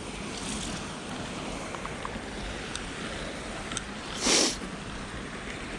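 Steady outdoor background hiss with one short, louder rush of noise about four seconds in.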